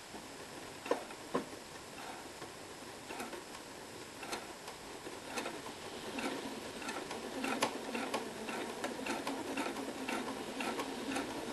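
Sewing machine stitching bias binding slowly, a sharp tick at each stitch about a second apart at first, then running a little faster and more steadily with a low hum from about halfway through.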